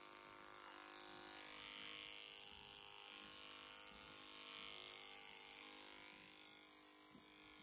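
Faint, steady hum of a cordless horse clipper's small motor as its blade cuts the short hair on a horse's chin and muzzle.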